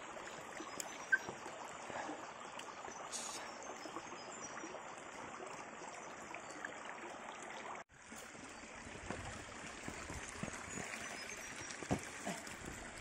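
Shallow creek water trickling and running over rocks: a steady, soft rush, broken by a brief drop-out about eight seconds in.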